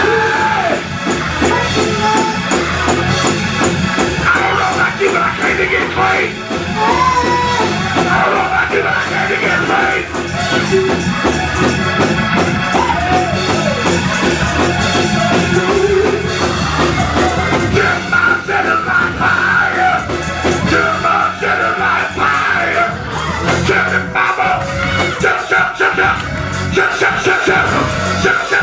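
Live Pentecostal praise-break music, loud throughout: a drum kit and keyboard play while a man sings and shouts into a microphone and a robed choir sings along. The drum hits come thick and fast with no pause.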